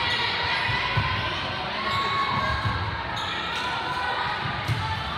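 Echoing gymnasium sound of a volleyball match: voices and chatter from players and spectators, with a few sharp thuds of the volleyball being hit, about a second in and again near the end.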